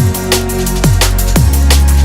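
Electronic drum and bass music with a fast, steady beat: deep kick drums that drop in pitch, a heavy sustained bass line and crisp hi-hats.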